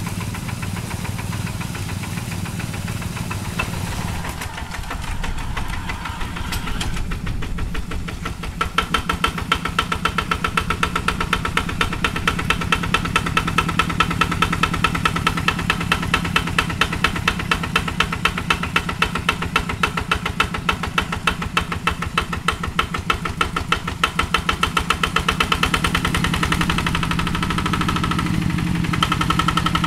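Kubota single-cylinder diesel engine of a Quick two-wheel hand tractor running in place, with a steady chugging beat. About eight seconds in the beat turns into a louder, sharper, evenly spaced knock that keeps on to the end.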